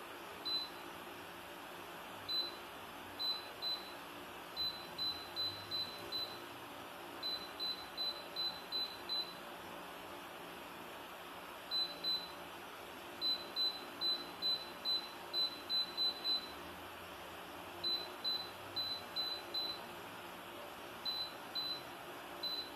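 Air fryer oven's touch control panel beeping at each button press as the cooking time is stepped up: short high beeps, some alone and some in quick runs of several, over a steady hum.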